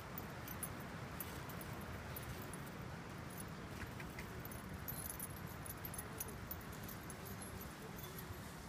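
Faint scattered metallic jingling and clinking over a steady low background noise.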